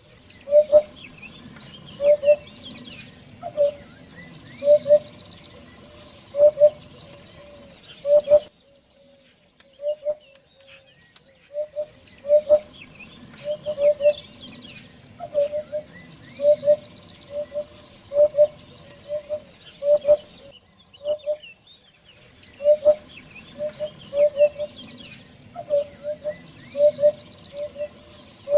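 Eurasian hoopoe calling: its low hooted 'oop-oop' notes come in runs of two or three, repeated every second or two. Smaller birds twitter faintly behind it.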